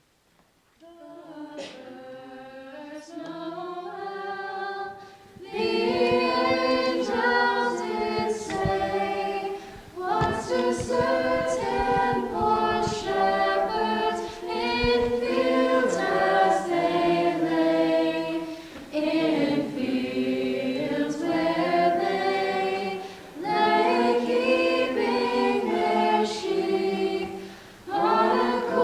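A cappella vocal group singing a Christmas carol in harmony. It starts softly about a second in and swells to full voices at about five seconds, with short breaks between phrases.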